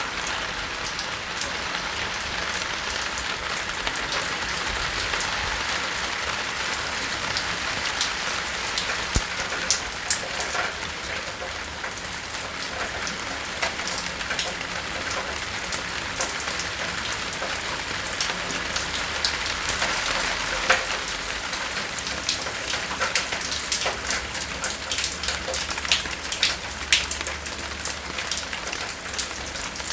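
Steady rain falling, with many sharp individual drops striking close by, heard as distinct clicks over the even hiss; the close drops come more often and louder in the second half.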